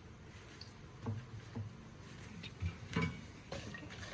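Metal spoon clicking and knocking against a cooking pan with light scraping, a handful of separate knocks, as ingredients are stirred while they roast in ghee.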